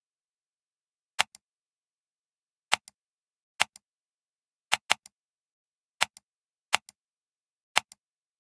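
Computer mouse button clicking about eight times, each a sharp press click followed a moment later by a softer release click. Two of the clicks come close together about five seconds in, as in a double-click.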